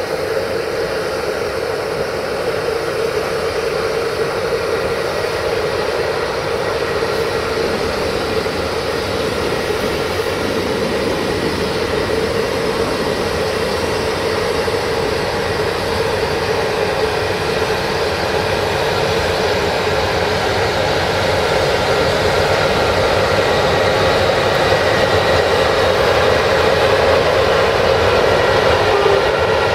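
CFR class 060-EA electric locomotive running slowly, its cooling blowers and traction motors giving a steady whirring drone that grows gradually louder as it draws near.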